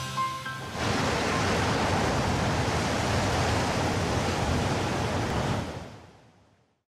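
Ocean surf: a steady rush of breaking waves and churning foam, fading out to silence near the end. The last notes of background music die away in the first second.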